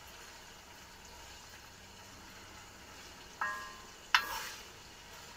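Pork frying in sunflower oil in a kazan, a faint steady sizzle: the oil is not hot enough and bubbles only weakly. About three and a half seconds in, the ladle strikes the kazan with a ringing clink, followed by a sharper knock.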